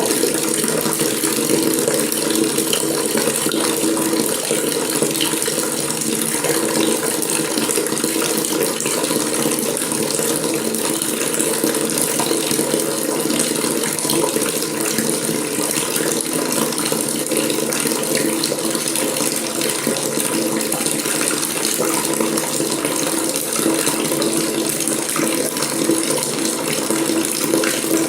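Water running steadily from a faucet, a continuous splashing stream.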